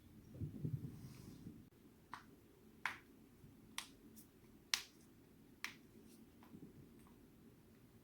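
Joints cracking: five sharp pops about a second apart, the fourth the loudest, after a low rustle near the start.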